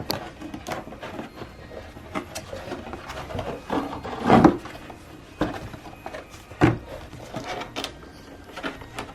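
Corrugated cardboard panels being handled and fitted together: irregular rubbing and scraping with scattered sharp taps and knocks, the loudest a longer scrape about four seconds in.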